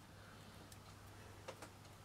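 Near silence, with two faint small clicks about one and a half seconds in from jewellery pliers working a pearl necklace's metal clasp.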